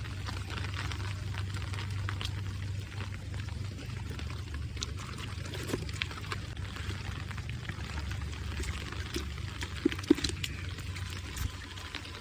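Water pouring and splashing steadily over a constant low hum, with scattered small clicks and two sharp knocks about ten seconds in.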